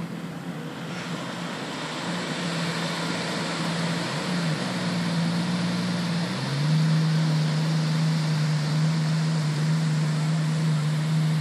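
Jet ski engine running at low speed, a steady low hum that grows louder as the craft comes closer. Its pitch dips briefly about four seconds in and shifts about six seconds in, after which it is louder. Surf washes underneath.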